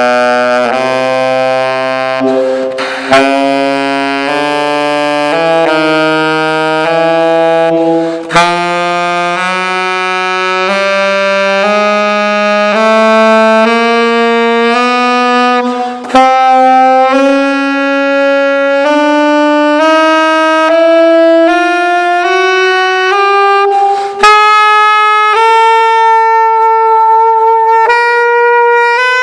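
Gold-plated 1927 Martin saxophone, played with a Gerber 8** mouthpiece (.117 tip opening), running a slow scale that climbs step by step from the bottom of the horn up through its range. The player pauses briefly for breath three or four times.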